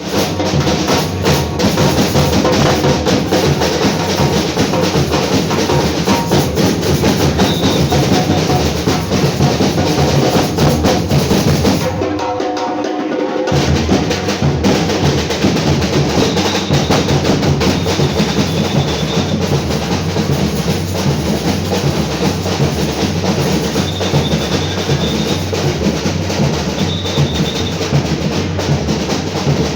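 A batucada samba percussion ensemble drumming a fast, dense rhythm with deep bass drums and crisp snare drums. The deep drums drop out for about a second and a half at a short break about twelve seconds in, then the full group comes back in.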